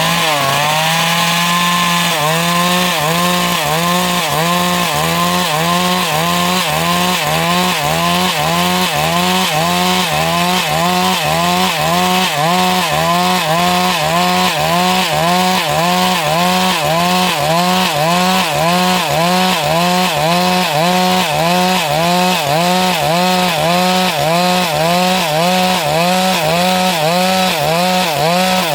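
Stihl MS382 two-stroke chainsaw running loud while cutting wood, its engine pitch dipping and recovering in an even rhythm about twice a second.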